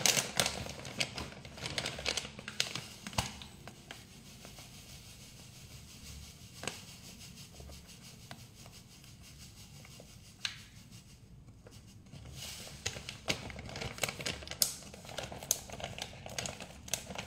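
Plastic packet of instant mashed potato flakes crinkling as it is handled and torn open by hand: dense crackly rustling over the first few seconds and again over the last few, with a quieter stretch in between broken by a couple of single clicks.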